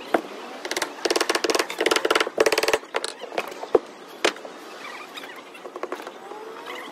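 A power tool rattling in four short bursts during the first three seconds, then a couple of sharp knocks and a few faint squeaks.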